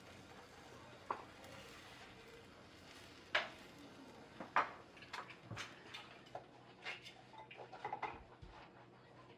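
Light clicks and knocks of household objects being handled and set down: one sharp knock about a second in, two louder ones around three and a half and four and a half seconds in, then a quick run of smaller clicks.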